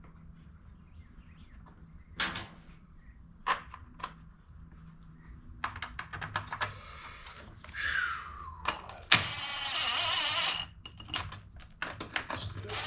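Workshop handling noises: scattered clicks and knocks of tools and small engine parts being set down and worked, then a loud hissing burst lasting about a second and a half, starting about nine seconds in.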